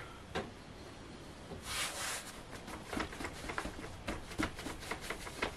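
Fingertips pressing and patting bread dough flat on a floured wooden board: soft, irregular small taps, with a brief brushing hiss about two seconds in.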